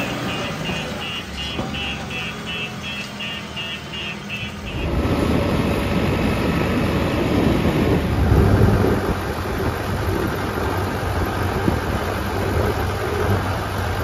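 Diesel engine of a JCB 3DX backhoe loader running steadily, with a high beep repeating about twice a second. About five seconds in it cuts abruptly to a louder, rougher heavy-diesel rumble mixed with wind rush.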